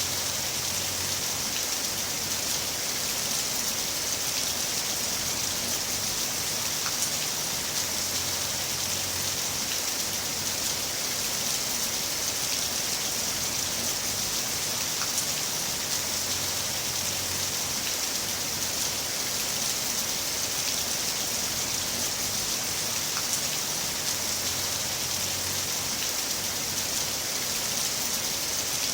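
Heavy rain falling steadily: a dense, even hiss of rain with scattered individual drop ticks.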